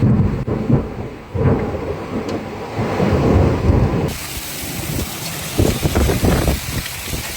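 Thunderstorm sound: a deep, uneven rumbling that swells and fades, then, after a sudden change about four seconds in, a steady hiss of heavy rain with lower rumbling under it.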